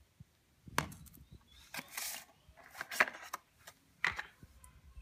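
Handling noise: a few light knocks and clicks with a short rustle as a small plastic power bank and an open cardboard box are moved and set down on a hard floor. The sharpest click comes about three seconds in.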